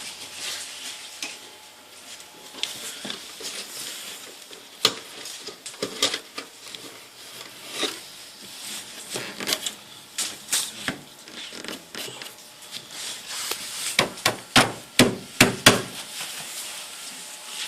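Parts of a display frame being handled and fitted together: scattered clicks and knocks, then a quick run of about eight sharp taps near the end.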